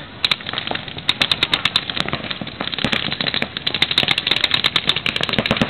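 Paintball markers firing in rapid strings of sharp pops, several guns shooting over one another. The fire grows thickest in the second half, at many shots a second.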